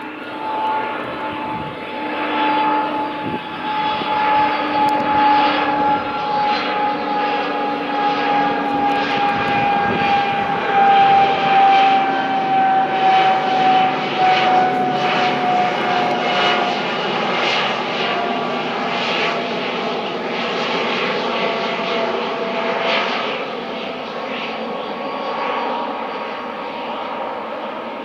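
Airbus Beluga (A300-600ST) cargo jet flying over on final approach, its two turbofan engines running with a steady whine that slowly falls in pitch. The sound swells to its loudest about halfway through, then fades toward the end.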